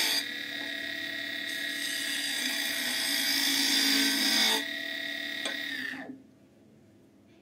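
Wood lathe running with its steady motor whine while a wide flat chisel cuts the spinning wood blank. The cut gets louder for about three seconds in the middle. Just after six seconds in, the lathe stops and the sound falls away to near silence.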